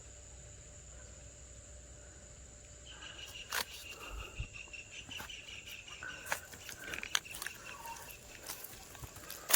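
Steady high-pitched insect drone outdoors. After about three seconds it is joined by irregular sharp clicks and knocks and broken chirping.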